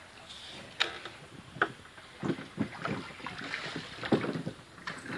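Wooden sampan being rowed: oar strokes splashing and sloshing in the canal water, with sharp knocks of wood on wood now and then, coming more often in the second half.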